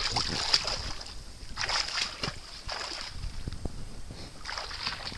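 Splashing and sloshing in shallow water from someone moving through a flooded field, coming in a few irregular bursts, with a steady high-pitched background hum throughout.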